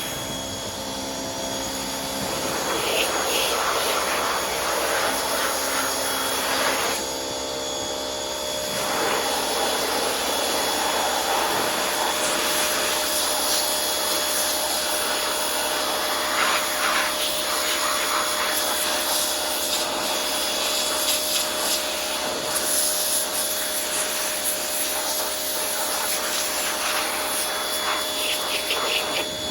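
Small electric pressure washer running, its 15-degree spray hissing and spattering against a grimy chainsaw to blast off oil and gunk. The spray noise eases briefly about seven seconds in, then carries on.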